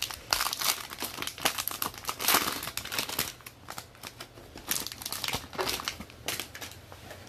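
Sealed trading card packs being torn open by hand, their wrappers crinkling in irregular bursts. The crinkling is busiest in the first few seconds and comes again about five seconds in.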